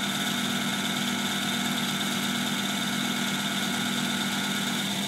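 Crankshaft balancing machine spinning a 454 big-block Chevy crankshaft with its bobweights and flexplate on a belt drive: a steady mechanical hum with a few fixed tones. This is a test spin to read the crank's remaining imbalance. Part of the hum drops away just before the end.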